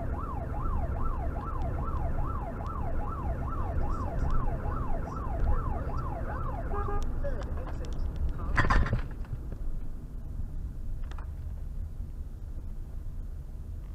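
Emergency vehicle siren on a fast up-and-down yelp, about two sweeps a second, heard from inside the vehicle over steady engine and road noise. It cuts off just under halfway through, and a single short loud burst follows a couple of seconds later.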